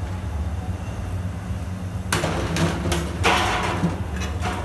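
A wire-mesh skimmer scooping boiled corn cobs out of a large metal pot, with two short splashing, scraping bursts, one a little after two seconds and one after three seconds. A steady low hum runs under it.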